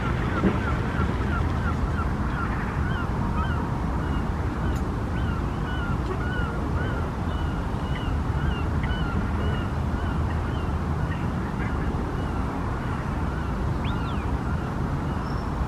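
Geese honking in a long run of short, repeated calls, over a steady low rumble.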